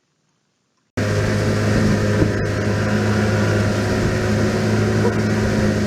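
Near silence, then about a second in an engine starts up loud and runs on steadily with a low, even hum and a rushing noise.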